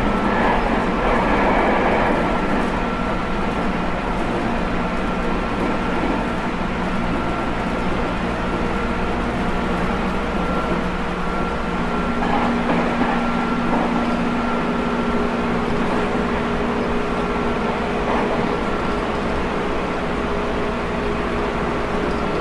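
Running sound of a JR Kyushu 811 series electric multiple unit from inside the car at speed: a steady rumble of wheels on rail with a thin steady whine, and a lower hum coming in for a few seconds about halfway.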